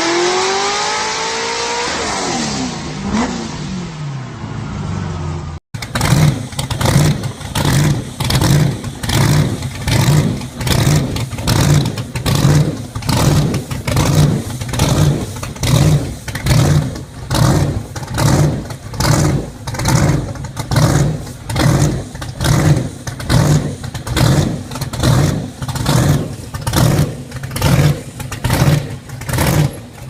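Supercharged V8 in a mid-1960s Corvette Stingray running with a heavy, uneven lope, its note swelling and falling a bit more than once a second as the car rolls. The opening few seconds are another car's engine with its revs dropping away, cut off abruptly.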